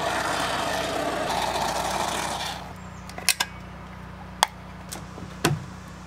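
Aerosol can of expanding spray foam hissing as foam is sprayed into the end of a PVC pipe, stopping suddenly after about two and a half seconds. Then a few sharp plastic clicks and knocks, the loudest near the end, as a PVC end cap is handled and pushed onto the pipe.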